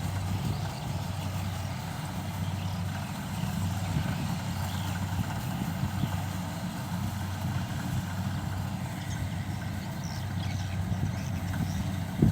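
Engine of a rice harvesting machine running steadily: an even low drone with a constant hum and no change in speed.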